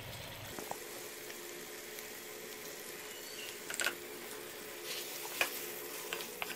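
Chicken pieces frying with a steady sizzle in an aluminium pot as fresh cream is added, with a few short clicks of a wooden spoon stirring against the pot.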